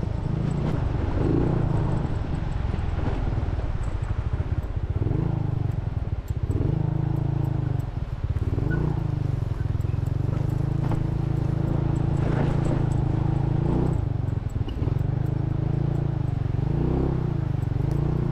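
An engine running under way, its pitch rising and falling as it speeds up and eases off, over a rushing noise.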